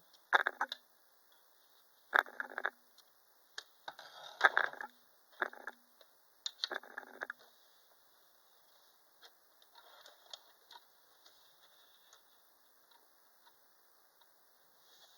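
Computerized sewing machine running in five short bursts, each under a second, with faint light clicks afterwards. The fabric isn't feeding because the feed dogs are lowered.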